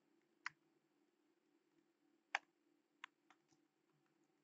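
A few sparse computer keyboard keystrokes, three or four separate clicks, over near silence.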